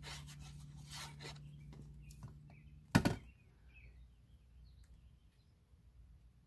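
Cardstock rubbing and rustling as a paper panel is handled and glued, then one sharp knock on the hard craft mat about three seconds in, followed by faint light paper handling.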